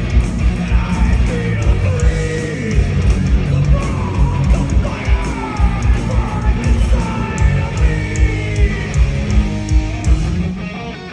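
Live heavy metal band playing with distorted guitars, pounding drums and sung vocals, as heard from the crowd in a large hall. The music drops in level near the end.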